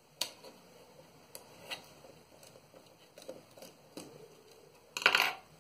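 Small screwdriver backing a tiny screw out of a wireless mouse's plastic housing: scattered light clicks and scrapes of metal on plastic, with a louder short clatter near the end.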